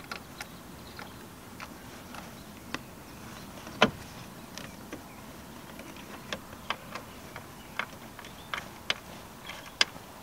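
Irregular light clicks and knocks from seat parts and bolts being handled while a Vauxhall Zafira B's folding rear middle seat is lined up to be bolted in, with one louder knock about four seconds in.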